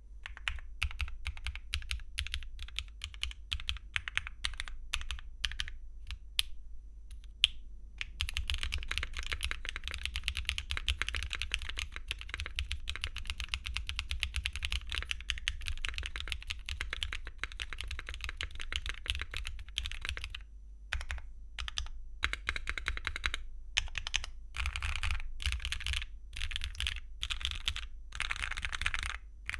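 Typing on a Mode Encore mechanical keyboard with factory-lubed KeyGeek Blush linear switches, a copper plate and copper bottom case with no foam, and doubleshot ABS Cherry-profile keycaps. Single keystrokes at first, then fast continuous typing from about eight seconds in, with a few spaced strokes before more quick bursts near the end.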